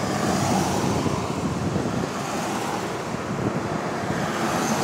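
A convoy of four-wheel-drive vehicles, including a Toyota Land Cruiser, driving past in close succession. Their engine and tyre noise makes a steady rush.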